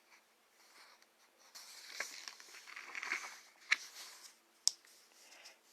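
Faint rustling and handling noise with a few sharp clicks.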